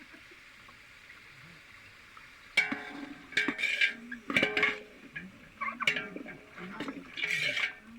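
A metal ladle knocking and scraping against a metal cooking pot while stirring, a string of ringing clanks that start about two and a half seconds in.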